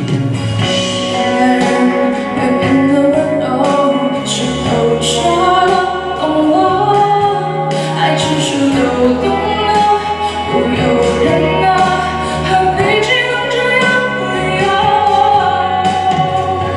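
A female vocalist singing a Mandarin pop ballad over instrumental accompaniment with drums.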